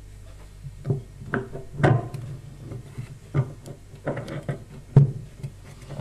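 Plastic bearing housing of a top-loading washing machine being turned and pressed into place on the tub around the drum shaft: a series of irregular knocks and clicks of plastic parts meeting.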